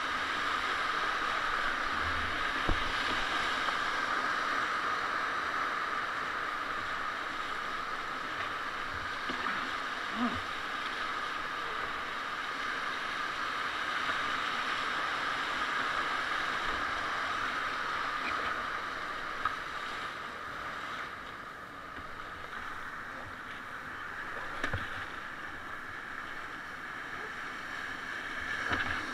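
Whitewater rapid rushing steadily around an open canoe as it runs down through the churning water. The rush eases a little about two-thirds of the way through, and a few brief knocks sound over it.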